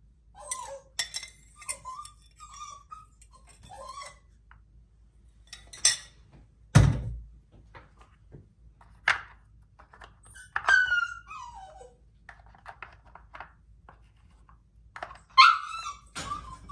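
A dog whining in short, high, falling whimpers, mixed with hard plastic clacks as pieces of a plastic puzzle feeder are set in place, and one heavy thunk about seven seconds in.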